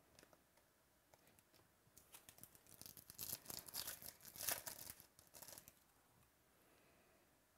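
Foil trading-card pack being torn open and crinkled by hand, a rustling tear of about four seconds starting two seconds in, after a few faint clicks.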